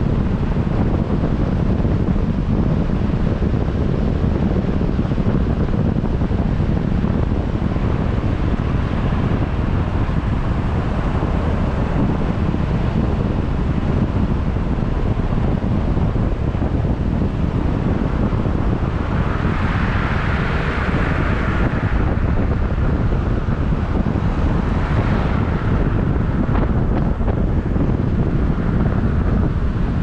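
Wind buffeting the microphone: a steady low rumble, with a brighter rushing swell about twenty seconds in.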